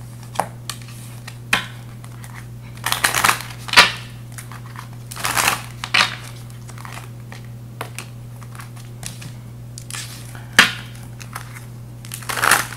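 A deck of round oracle cards being shuffled in the hands, with cards flicked and slapped down on a table: irregular papery riffles and sharp slaps, a few seconds apart. A steady low hum runs underneath.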